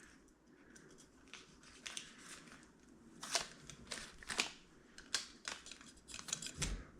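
Faint, scattered clicks and rustles of hands feeding a light's wire through a drilled hole in a motorcycle saddlebag, with the sounds coming closer together in the second half.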